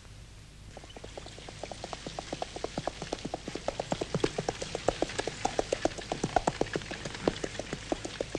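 Horse hooves clip-clopping at a quick trot, starting about a second in and growing louder as the horse approaches.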